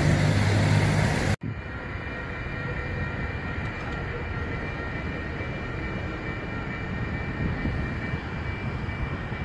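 A loud low rumble that cuts off abruptly about a second and a half in. Then a railroad grade-crossing warning bell rings steadily while the crossing signals flash and the gate arm lowers for an approaching train, over a low background of wind noise.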